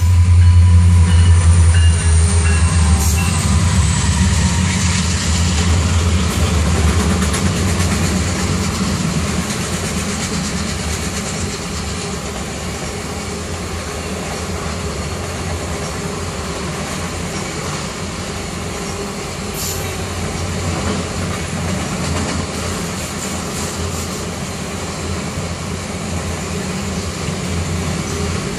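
Norfolk Southern SD70M diesel locomotives passing close, their deep engine drone loudest at the start and fading over the first several seconds. It is followed by the steady rolling noise of a long string of autorack freight cars going by.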